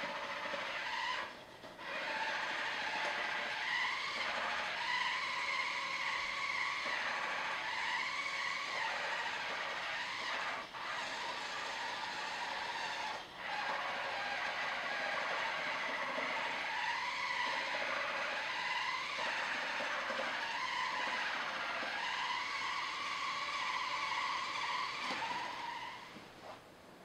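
Electric drive motors of a remote-controlled toy truck whining as it drives, the pitch rising and falling with speed, with a few short breaks; it stops near the end.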